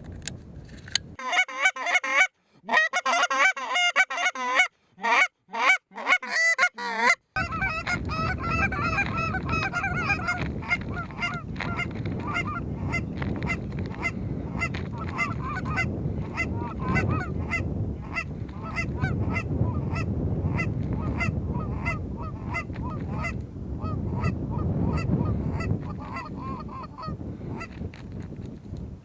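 Geese honking: a burst of many overlapping honks with abrupt cut-outs, then from about seven seconds a regular run of short honks and clucks over steady wind noise on the microphone.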